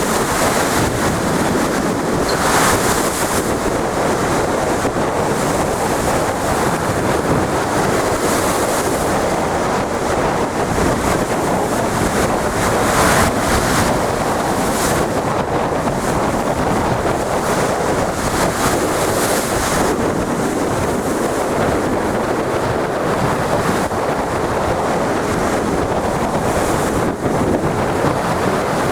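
Big ocean waves breaking in heavy surf, with strong wind buffeting the microphone in gusts.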